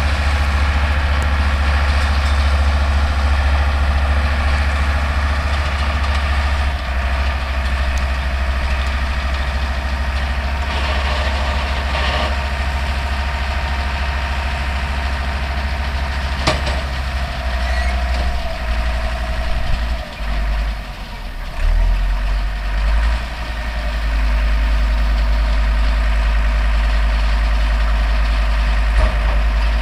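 Older Deutz tractor's diesel engine running steadily under load as it pulls and drives a New Holland round baler, with the baler's machinery working along. The engine note dips briefly about twenty seconds in, then picks up again.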